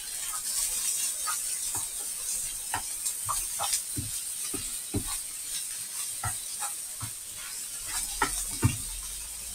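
Diced bacon and sliced ham frying in a pan, a steady sizzling hiss, with short scattered knocks and scrapes of a utensil stirring them.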